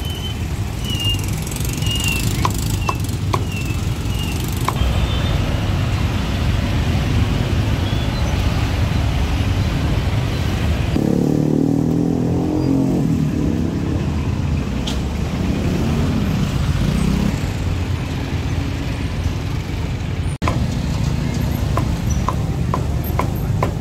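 Steady street-traffic rumble with an engine passing near the middle, and a few sharp knocks from a cleaver chopping roast pork on a wooden chopping block near the start and near the end.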